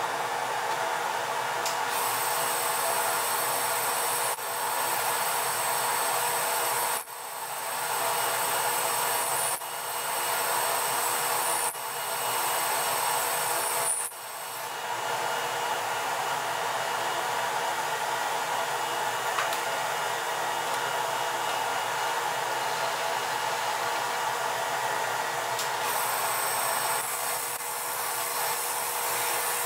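Metal lathe running, its carbide grooving tool cutting grooves into a spinning aluminium cylinder: a steady whirring with a thin whine over it. The sound drops off sharply and builds back up several times in the first half.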